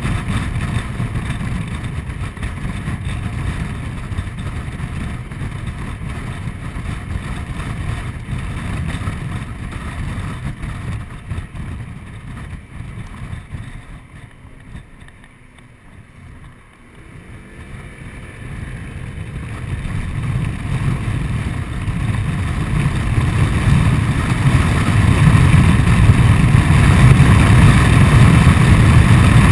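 Honda Forza 125 scooter's single-cylinder engine and the wind rushing past at road speed. The noise dies down about halfway through as the scooter slows, then builds again as it accelerates away with a rising engine note, and is loudest near the end.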